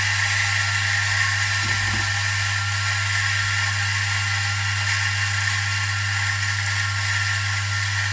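Electric coffee grinder running steadily, its motor humming under the hiss of beans being ground.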